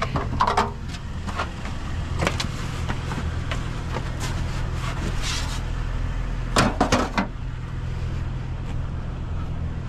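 A vehicle engine idling with a steady low hum, with several knocks and clanks of aluminium scrap being handled, the loudest a quick cluster about two-thirds of the way through.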